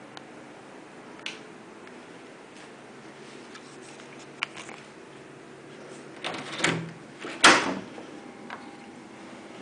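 Wooden door being opened by its metal handle: a few faint clicks, then a cluster of latch and handle knocks and rattles, with one loud knock about two-thirds of the way in as the door comes open.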